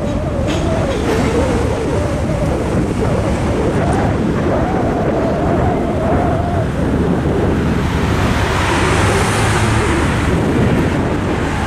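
Wind buffeting the microphone over a steady low rumble, with a car passing close by near the end.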